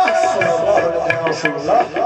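Qawwali: a male voice sings over a held harmonium note, with hand-drum strokes.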